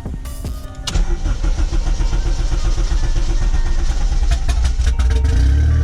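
Acura RSX Type S 2.0-litre four-cylinder engine cranked and started with the clutch safety switch bypassed by a jumper wire: a few clicks, then it catches about a second in and runs, revving up near the end.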